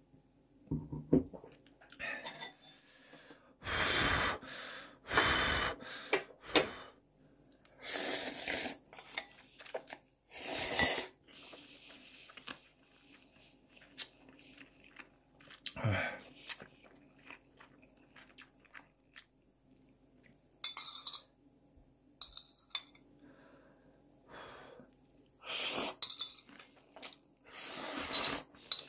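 Noodles being slurped from a bowl in several loud slurps about a second long, with chewing and small clinks of utensils against the bowl in between.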